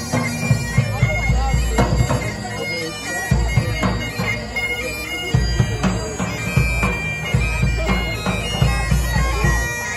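Bagpipe music playing, with steady droning and a high melody line, while sharp bangs and cracks of fireworks go off irregularly throughout.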